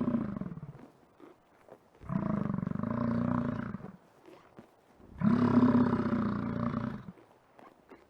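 American bison bellowing: the end of one deep, drawn-out bellow, then two more, each about two seconds long, about a second apart.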